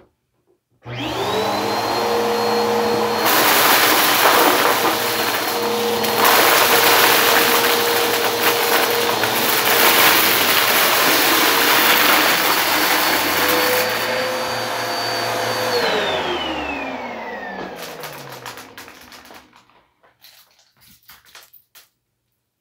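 Bissell Helix upright vacuum cleaner switched on, its motor whining up to speed within a second and running steadily, with a louder, rougher noise while it sucks up a pile of small debris from carpet. About sixteen seconds in it is switched off and the whine falls away over a few seconds.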